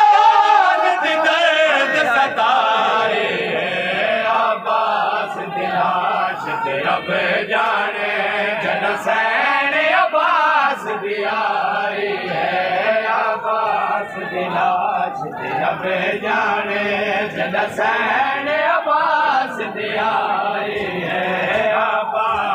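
A crowd of men chanting a noha, a Shia mourning lament, together in chorus, many voices rising and falling as one.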